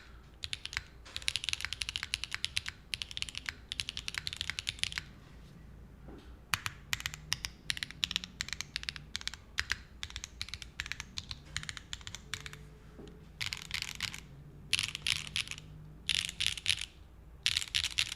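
Typing on a QK60 mechanical keyboard with Gateron Smoothie linear switches, a POM plate and GMK keycaps: fast runs of keystrokes, a short pause about five seconds in, slower single presses, then several short rapid bursts near the end.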